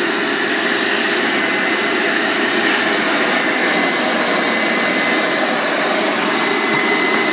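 Hoover carpet and upholstery shampoo vacuum running steadily with a high whine, its hand tool sucking dirty cleaning solution out of car floor carpet.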